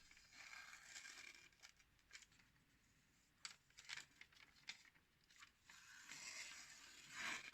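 Faint paper rustle and crinkle as a freshly sharpened knife slices slowly through a sheet of paper, with a few small ticks partway through. The edge is cutting cleanly.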